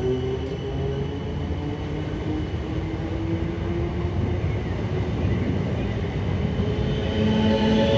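Class 455 electric multiple unit running through the station, a steady rumble with the whine of its DC traction motors. The whine sinks a little in pitch and fades over the first few seconds, then a new, lower whine comes in about seven seconds in.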